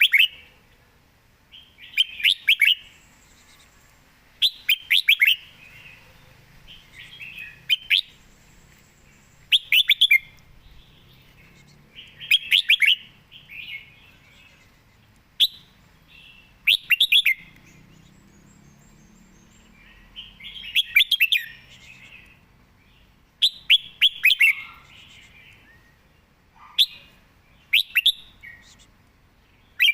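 Red-whiskered bulbul singing short, quick phrases of bright notes, a phrase every two to three seconds with brief pauses between.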